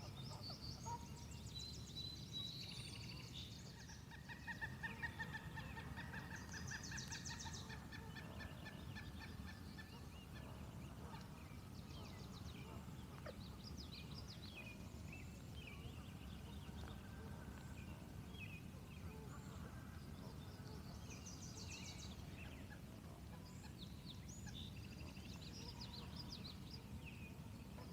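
Several wild birds calling and chirping over one another, with a rapid pulsing, chattering call standing out a few seconds in, over a steady low rumble.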